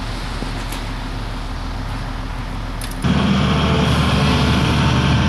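Volvo EC210B excavator's diesel engine running steadily, then jumping suddenly louder and heavier about three seconds in as the machine is worked.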